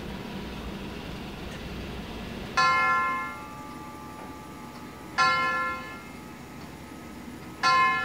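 Grandfather clock striking the hour: three single strokes about two and a half seconds apart, each ringing out and fading over about a second.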